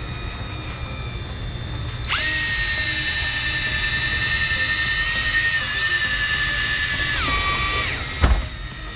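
Small electric motor of a deep-drop fishing reel whining at a steady high pitch for about five seconds, then sliding down in pitch and stopping. A sharp thump follows just after, over a constant low hum.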